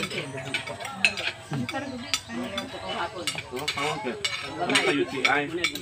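Overlapping chatter of several people at a meal, with scattered clinks and taps of cutlery on plates and dishes.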